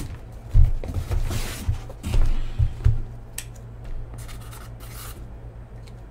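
Cardboard inner cases sliding against each other and being lifted out of a cardboard shipping case, scraping and rubbing. Several dull knocks come in the first three seconds, and a couple of brief scrapes follow later.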